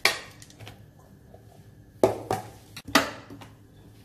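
Three sharp clatters of kitchenware being handled: a metal mesh strainer holding washed white maize kernels, and a plastic blender jar. The first comes right at the start, and the other two come about a second apart after a quiet gap.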